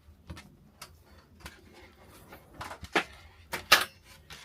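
Small clicks and rustles of a freshly crimped power cable and its connector ends being handled, with two sharper clicks near the end.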